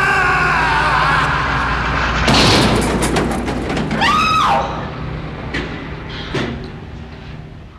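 Dramatic sound effects: a loud crash about two seconds in, then a short high-pitched screech that rises and falls about four seconds in, with a few sharp knocks after it as the sound dies down.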